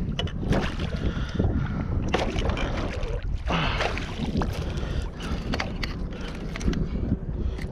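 Wind rumbling on the microphone, with irregular splashes and knocks as a small northern pike is fought and landed.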